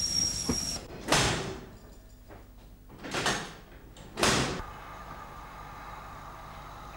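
Three heavy slams of railway carriage doors shutting, the first about a second in and the last two close together, each with a short ring-out. A faint steady hum follows.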